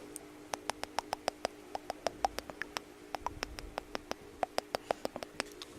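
Rapid, light tapping of concealer being dabbed on for base makeup: many sharp little taps, irregular at about six a second.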